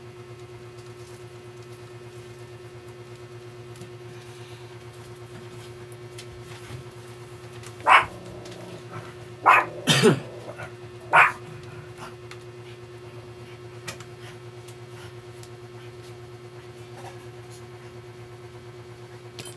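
A dog barking: four short, loud barks about halfway through, over a steady low hum.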